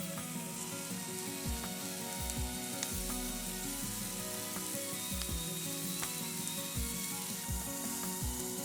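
A chunk of meat sizzling as it cooks over a wood fire, a steady hiss, with background music.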